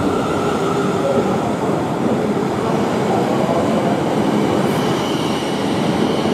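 South Western Railway Class 450 electric multiple unit rolling along the platform as it pulls in: a steady rumble of wheels and running gear passing close by, with a faint high whine over it.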